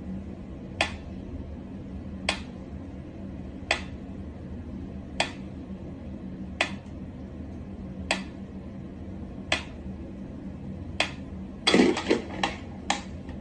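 Sharp clicks or taps on something hard, evenly spaced about one and a half seconds apart over a low steady hum, quickening into a short cluster near the end.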